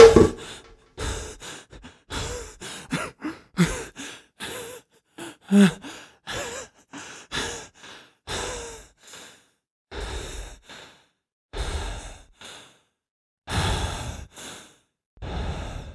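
A man panting and gasping for breath, some breaths voiced, coming quickly at first and then slowing and spacing out: winded after a violent struggle.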